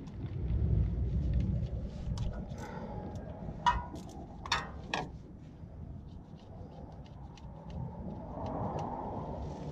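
A few sharp metallic clinks from a socket wrench and tools against the car's underbody and bolts, three of them close together in the middle, each ringing briefly. Under them is a low rumble at the start, and there are light ticks near the end.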